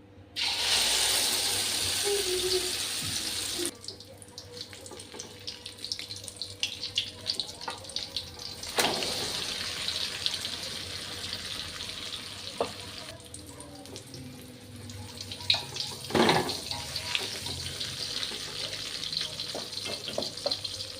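Tap water running into a sink in strong gushes, turned on and off, with splashing and light clinks as something is rinsed under it.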